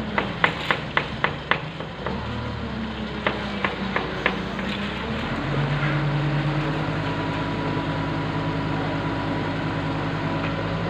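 Engine of a truck-mounted crane running steadily; about five seconds in it steps up to a higher, louder steady run as it works the crane. Over the first half, two runs of sharp knocks, about four a second.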